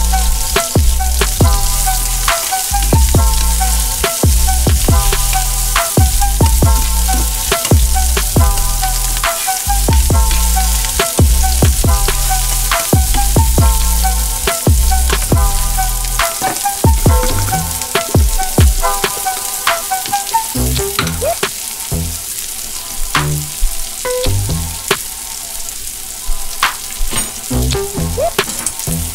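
Sliced onions sizzling in hot oil in a nonstick frying pan, with clicks as they are stirred now and then.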